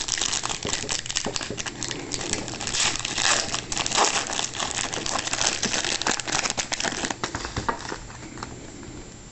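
Foil wrapper of a 2009 Donruss Threads football card pack crinkling as it is opened and handled. It is loud and busy, full of sharp crackles, and dies down about seven or eight seconds in.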